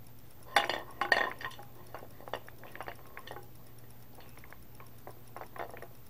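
Spatula clattering and scraping in a frying pan, with two louder knocks about half a second and a second in, then lighter scattered taps.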